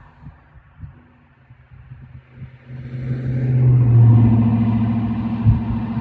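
A motor vehicle passing close by on the road. Its engine and tyre sound swells from about two and a half seconds in, peaks a little after four seconds and slowly fades. Faint low thumps come before it.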